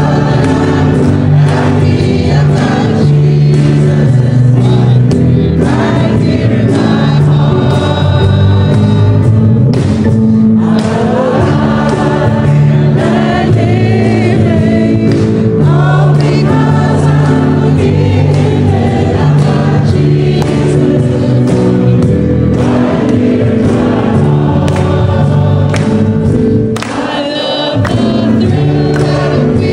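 A choir singing a gospel worship song.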